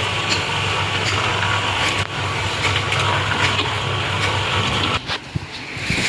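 Engine of a construction machine running steadily, a low hum under a broad mechanical noise. It drops sharply about five seconds in and picks up again near the end.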